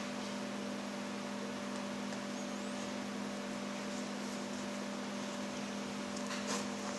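Steady electrical hum of a few fixed tones over a background hiss. A brief faint rustle about six and a half seconds in, as a leather thong is pulled through a strap hole.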